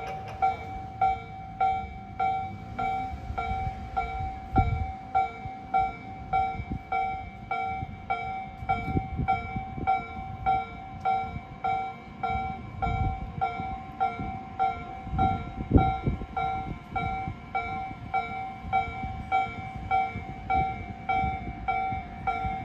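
A Japanese railway level crossing's electronic warning bell, the new-type tone at Tobu Noda Line crossing No. 258, ringing steadily at just under two dings a second. A train rumbles through over the crossing partway in, loudest around the middle.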